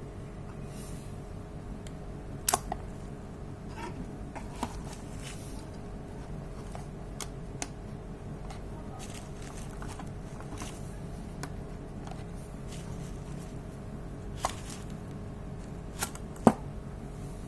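Scattered sharp clicks and knocks from a CO2 airsoft Beretta M84 pistol, irregularly spaced, with the loudest ones about two and a half seconds in and near the end, over a steady low hum.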